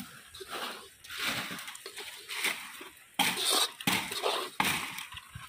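A utensil scraping and knocking against a cooking pot as melted butter is added to crushed-Oreo brownie batter and mixed in, in irregular strokes.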